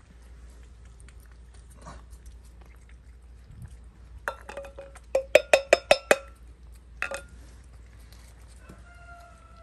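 A metal pet-food tin clinking and ringing about eight times in quick succession a few seconds in, with one more knock a second later. Near the end a cat gives a short, slightly falling meow.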